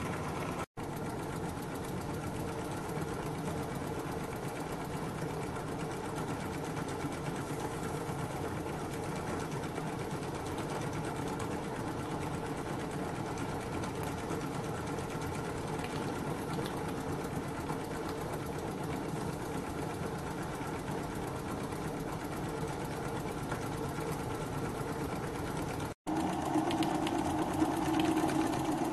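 Small oscillating ('wobbler') live-steam model engine running steadily with a fast, even mechanical beat, on low steam pressure of about 4 or 5 psi by the builder's estimate. The sound drops out for an instant twice and is louder for the last few seconds.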